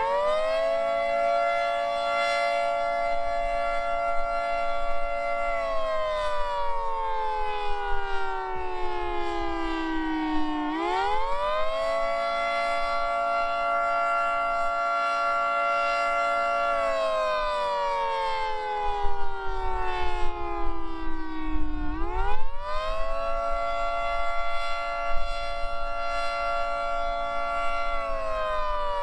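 Federal Signal 2T22 dual-tone electromechanical siren sounding the Attack signal. It winds up quickly to a steady two-note chord, holds for about five seconds, then winds down slowly, and this repeats about every eleven seconds. Wind buffets the microphone, gusting harder near the middle.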